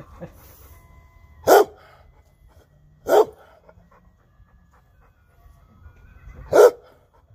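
Chocolate Labrador retriever barking at an ice cream truck: three single loud barks, the first two about a second and a half apart, the third after a longer pause.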